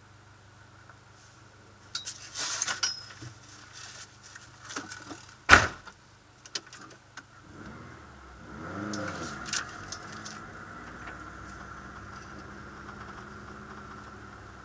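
Clatter and rustling inside a rally car's cabin, with one sharp knock about five and a half seconds in. About eight seconds in the car's engine revs up and falls back, then settles into a steady drone as the car rolls forward.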